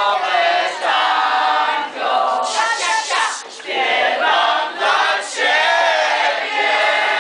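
A crowd of young voices singing together loudly, in phrases broken by short pauses.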